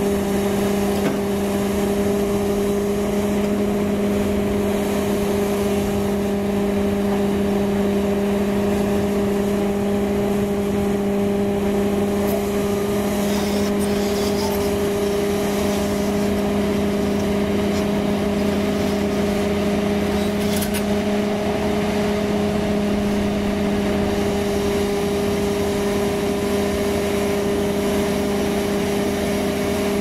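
CAT 336D2 crawler excavator's diesel engine and hydraulics running steadily as it tracks slowly. The hum holds an even pitch throughout.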